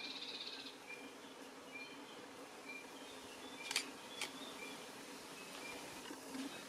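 Faint bamboo-forest ambience. A short high note repeats about once a second over a steady low hum, and two sharp clicks come about half a second apart near the middle.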